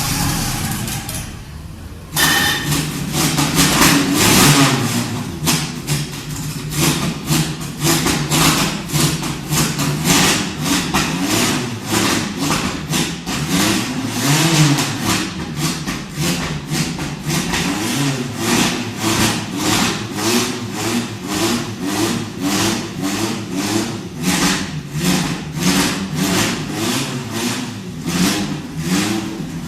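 Alpine M63 race car's mid-mounted inline four-cylinder engine, which catches and fires up suddenly about two seconds in. It then runs with the throttle blipped again and again, revs rising and falling about once a second.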